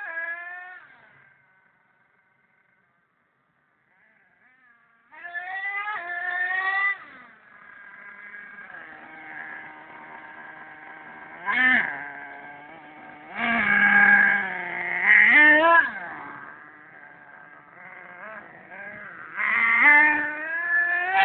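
HPI Savage 25 RC monster truck's .25-size two-stroke nitro engine, revving up in repeated bursts between stretches of steady high idle. The engine sound drops away almost to silence for a couple of seconds about a second in.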